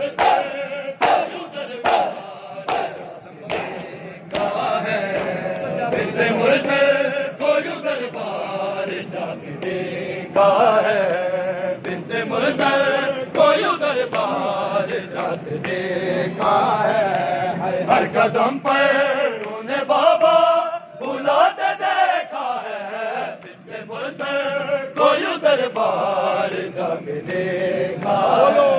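Shia mourners' matam: sharp slaps of hands on chests, about two a second, for the first few seconds. Then a group of men chants a nauha lament in unison.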